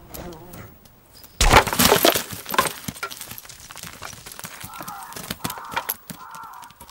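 Ibex horns clashing with a sudden loud crack about a second and a half in, followed by a rattle of horn-on-horn knocks. After that come scattered sharp clicks and knocks of hooves and loose stones on the rocky slope.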